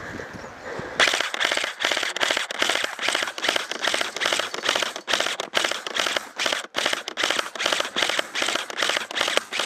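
Airsoft electric gun (AEG) firing on full auto: a fast, rattling string of shots starting about a second in, running in long bursts with a few short breaks.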